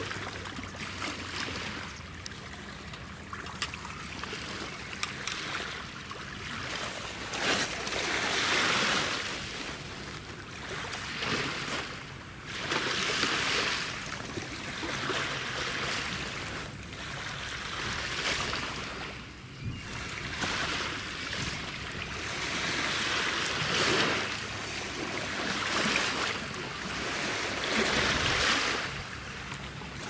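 Thick wagyu sirloin steak sizzling on a wire grill over charcoal: a hiss that swells and fades every few seconds, with a few sharp pops near the start.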